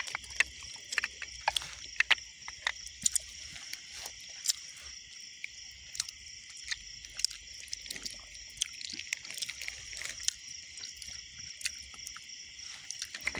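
Steady high-pitched chorus of night insects, with scattered close clicks and smacks throughout.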